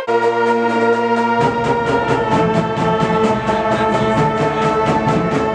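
Brass band music: a held brass chord, then low brass and percussion come in about a second and a half in with a quick, steady beat.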